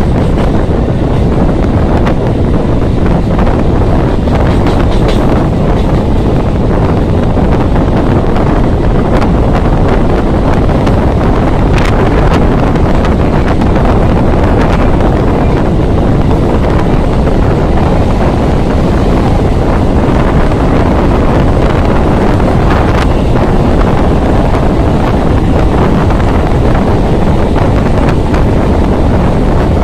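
Loud, steady wind noise on a microphone held out of a moving electric local train, over the train's running rumble on the track.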